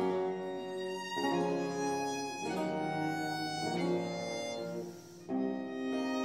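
Early-17th-century ensemble music played on three baroque violins over a dulcian and theorbo bass. The violins hold bowed chords that change about once a second, over a low bass line, with a brief pause about five seconds in before the next chord.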